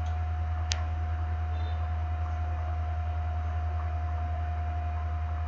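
Steady low electrical mains hum with a faint steady higher tone over it, and one short sharp click about three-quarters of a second in.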